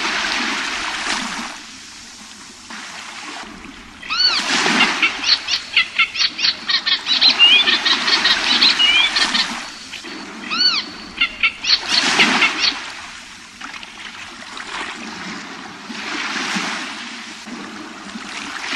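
Waves washing in slow swells, with birds calling in fast runs of chirps and rising-and-falling calls from about four seconds in until about thirteen seconds in.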